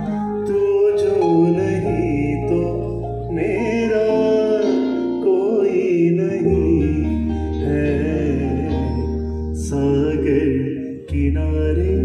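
Live band playing a Hindi film song: a male voice singing over electric guitar, bass guitar and keyboard, with held low bass notes in the second half.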